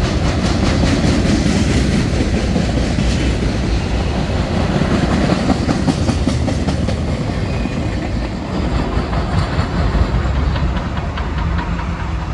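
Loaded freight train of flatcars and covered hoppers rolling past close by: a steady rumble with wheels clicking over rail joints. Near the end the rumble eases and a steady engine drone comes up under it.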